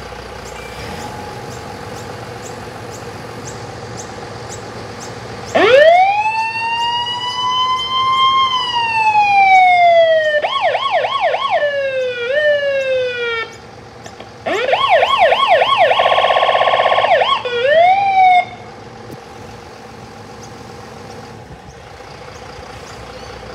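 Mercedes-Benz Atego fire truck's siren demonstrated over its idling diesel engine. About five seconds in, the siren rises into a long wail and falls again, then switches to quick yelp sweeps. After a brief break it comes back with yelps and a very fast warble, and cuts off about eighteen seconds in, leaving the engine idling.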